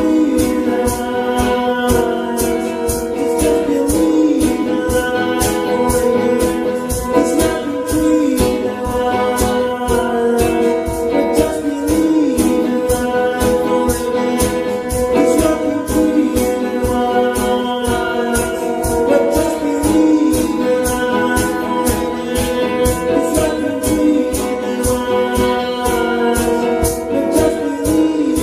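Acoustic rock song: guitar with a steady, quick percussive beat and a singing voice.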